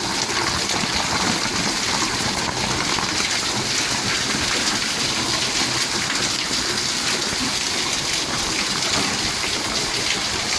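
Heavy rain pouring down steadily, an even, dense hiss of falling drops that holds without a break.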